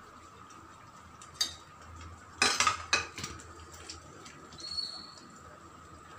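A spatula stirring paneer cubes into a thick curry in a kadai, clinking and scraping against the pan in a few short clatters, the loudest about two and a half seconds in. A faint steady hum runs underneath.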